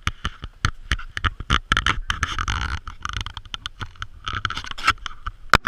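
Handling noise from a camera being moved about and pushed against slushy ice: rapid knocks and clicks, with a rougher scraping stretch about two seconds in.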